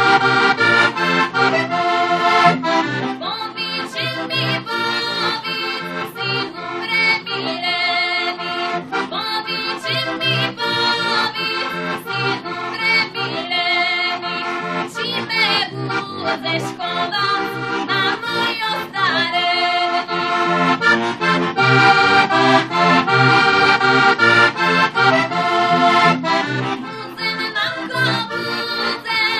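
Heligonka, a Slovak diatonic button accordion, playing a traditional folk tune instrumentally: chords and melody over a regular pulsing bass.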